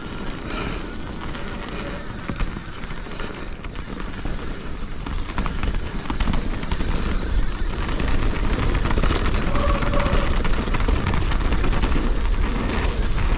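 Downhill mountain bike ridden fast on a dirt trail, heard from a camera on the bike or rider: a steady rolling rumble with many rattling clicks and knocks from the bike over the ground. The rumble grows louder about six seconds in as the pace picks up.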